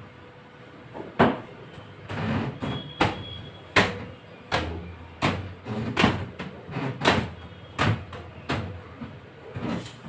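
A window frame and its panes being handled and wiped during cleaning: a run of sharp knocks and bangs, roughly one every half-second to second, starting about a second in.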